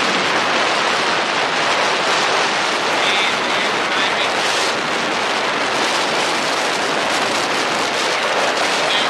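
Steady rushing wind noise on the microphone of a camera carried on a moving motorbike, drowning out the engine.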